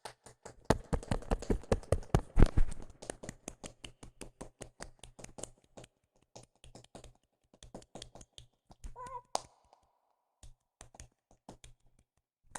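Rapid tapping or clicking, dense and loud for the first few seconds, then sparser and quieter. A brief pitched squeak comes about nine seconds in.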